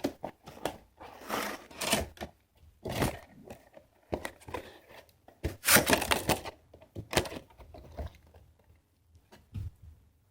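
Packaging of a puzzle cube being handled and pulled apart: irregular crinkles, scrapes and light knocks of plastic and cardboard.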